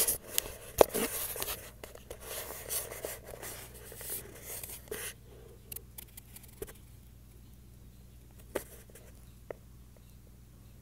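Handling noise of a hand-held phone camera being moved and set down low on a carpeted floor: rubbing, scraping and knocks through the first five seconds, loudest about a second in. A few faint isolated clicks follow.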